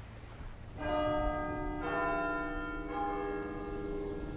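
Church bells ringing: three strokes about a second apart, starting just under a second in, each at a different pitch and ringing on.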